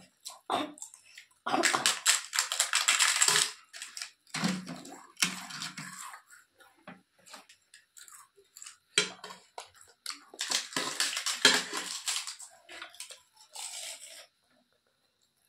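Crisp fried papad being bitten and chewed close to the microphone: crackly crunching in two long bouts, about two seconds in and again about ten seconds in, with softer crunches between.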